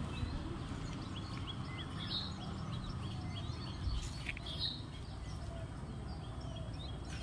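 Birds chirping from the scrub woodland: many short, high calls in quick succession, over a steady low rumble.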